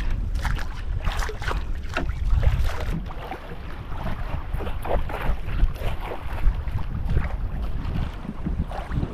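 Wind buffeting the microphone over a choppy sea, with water lapping and slapping against a small outrigger boat's hull in irregular short splashes and knocks.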